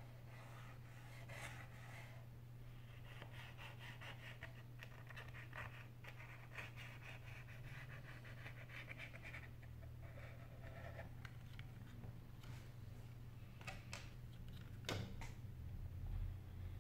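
Faint rubbing and scraping on a Sony Xperia Z3's phone frame as its edge is cleaned, over a steady low hum, with a few sharp clicks about two-thirds of the way in.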